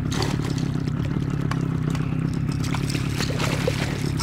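A boat's outboard motor runs steadily at low speed, with water splashing and trickling close by.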